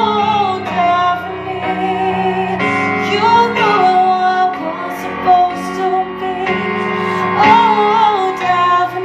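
A woman singing a pop ballad melody into a handheld microphone over instrumental accompaniment, her voice gliding between held notes.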